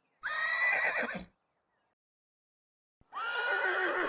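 Horse whinnying twice, each call a high wavering cry of about a second that trails off lower at the end, with near silence between them; the second begins about three seconds in.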